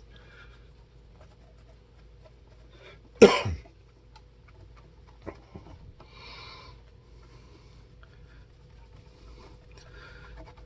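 Cloth rag rubbing polish into a guitar's lacquer finish, soft intermittent swishing strokes with a few small clicks. About three seconds in comes one short, loud sound, the loudest thing here.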